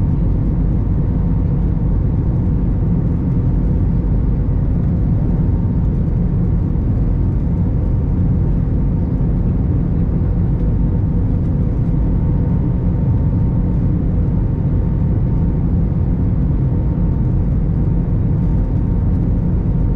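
Steady cabin noise inside an Airbus A321 airliner: a continuous low rumble from the engines and airflow, with a faint steady whine above it.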